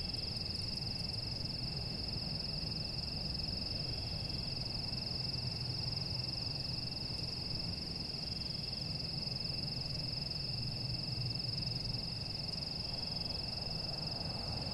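A steady high-pitched tone, with a fainter constant tone below it, over a low background hum that stays even throughout.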